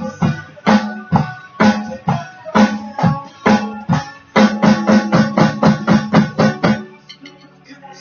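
Drum kit played along with a recorded rock song, the guitar under it, in a steady beat that breaks into a faster run of even hits. The music stops suddenly about seven seconds in.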